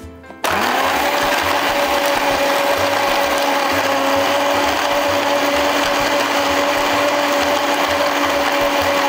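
Countertop blender switched on about half a second in, its motor then running at a steady whine while it blends lemon, ice and yogurt until smooth.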